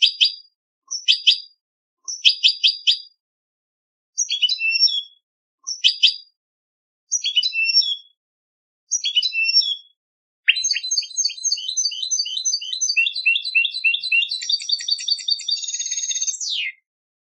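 European goldfinch contest-style song: seven short chirped phrases about a second and a half apart, then a long unbroken strophe of rapid high trills lasting about six seconds that ends in a quick falling note.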